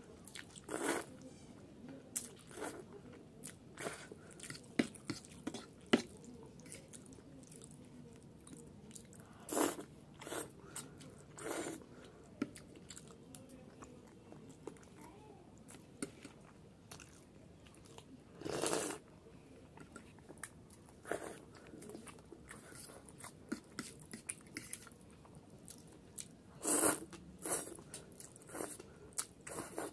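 Close-up eating sounds of Maggi masala noodles: wet chewing and mouth clicks, broken by about five short loud slurps as forkfuls of noodles are drawn into the mouth.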